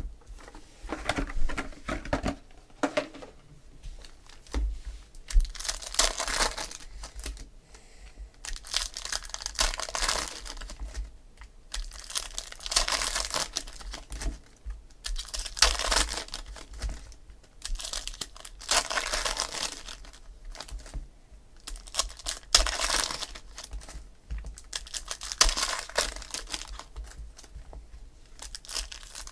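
Foil wrappers of Topps Finest football card packs crinkling and tearing open in repeated bursts every few seconds, with light clicking of cards being handled in between.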